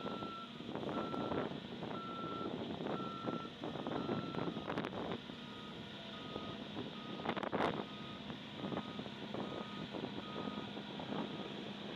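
A construction vehicle's reversing alarm beeping about once a second over the running of heavy paving machinery. A second, fainter beeper at a slightly lower pitch takes over about five seconds in, and there are a few clanks.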